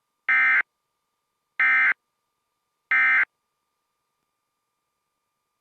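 Emergency Alert System end-of-message (EOM) data bursts: three short, loud digital tone bursts about 1.3 seconds apart, marking the end of the alert message.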